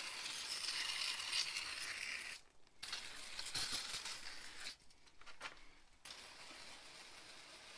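Aerosol cleaner spraying onto a tractor loader's hydraulic quick connector to clean it: hissing in three bursts that cut off sharply, the last one fainter.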